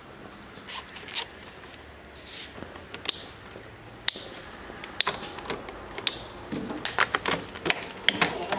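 Scattered clicks and light knocks of hand work on a motorcycle's wiring and plastic body panels. They come sparsely at first and grow more frequent in the second half.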